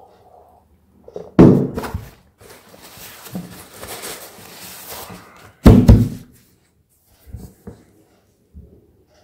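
Two loud, dull thumps close to the microphone, about four seconds apart, with a soft hissy rustle between them and a few small knocks near the end.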